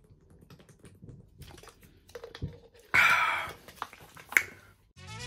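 Drinking water from a plastic bottle: small clicking sounds of swallowing and the bottle, then a loud breathy exhale about three seconds in and a sharp click a second later.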